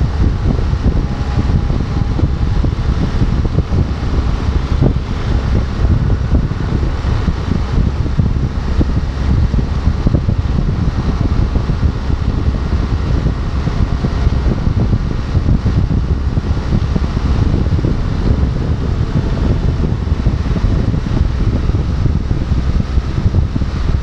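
Wind rushing and buffeting over the microphone of a motorcycle cruising at highway speed, a steady low rumble, with the bike's running noise under it.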